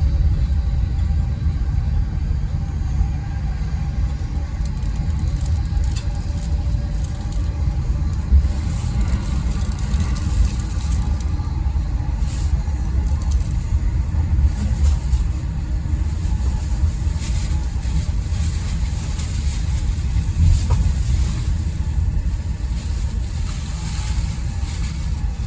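Running noise inside the upper deck of an E217 series commuter train's Green car: a steady low rumble of the train under way, with occasional sharp clicks and knocks from the running gear.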